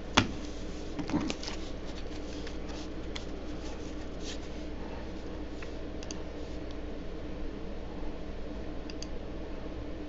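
Trading cards being handled and shuffled by hand. There is a sharp click just after the start and another about a second in, then faint scratches and light ticks of card on card, over a steady low hum.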